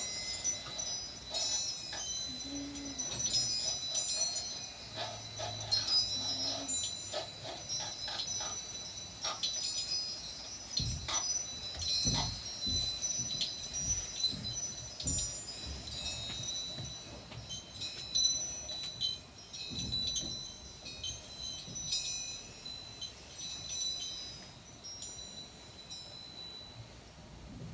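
Live free-improvised experimental music: a dense, shimmering tinkle of small chime-like metallic tones, with scattered clicks and a few low knocks about halfway through. It thins out and grows softer near the end.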